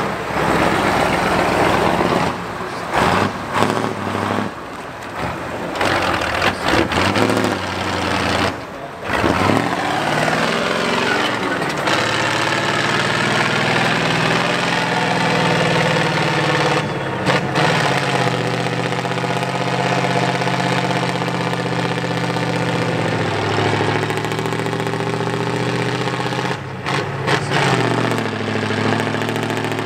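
Heavy off-road trial truck engine working under load, its revs rising and falling as it crawls up a steep slope.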